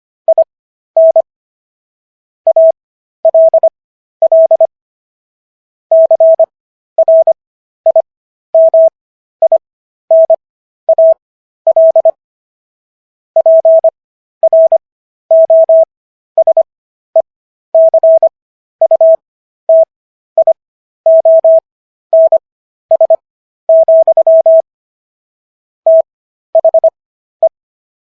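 Morse code sent as a single steady electronic tone, keyed in short dits and longer dahs grouped into letters with wide gaps between them. This is Farnsworth spacing at an overall 15 words per minute, spelling out the text of the Sixth Amendment.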